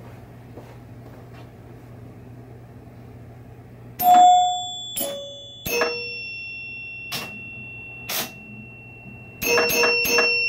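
Rebuilt chime box of a 1976 Bally Captain Fantastic electromechanical pinball machine ringing as the game scores. After a few seconds of low hum, single chime strikes of different pitches ring out about four, five and six seconds in, followed by two sharp clicks and then a quick run of chime strikes near the end.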